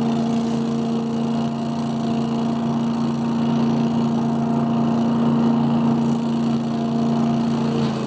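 Scag Giant Vac leaf vacuum running steadily. Its 18 horsepower Briggs & Stratton Vanguard engine and fan make a constant drone with a strong steady hum.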